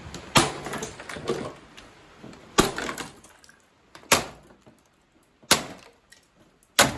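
Five heavy sledgehammer blows on a Ford Focus, one every second and a half or so. Some blows are followed by a short clatter of loose pieces.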